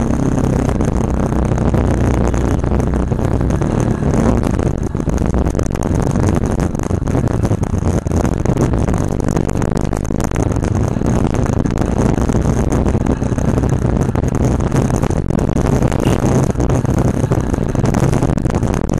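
Motorcycle engine running while riding, heard through a bike-mounted camera, with heavy wind and road noise over it and a thin steady high whine above.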